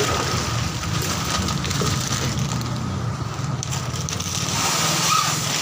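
Steady background din of a busy market: a low rumble under an even hiss, with no single sound standing out.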